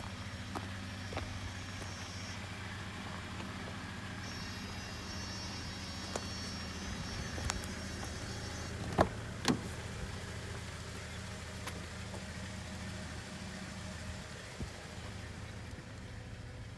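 Toyota Hiace's 2RZ four-cylinder petrol engine idling steadily. Two sharp metallic clicks come about nine seconds in, half a second apart, as the van's side-door handle and latch are worked.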